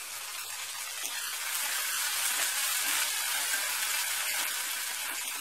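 Chopped tomato and onion frying in hot oil in a kadai: a steady sizzle that swells about a second in and eases a little toward the end.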